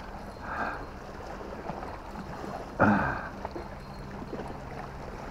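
Seawater washing and splashing against shoreline rocks, with two louder rushes, about half a second in and near three seconds.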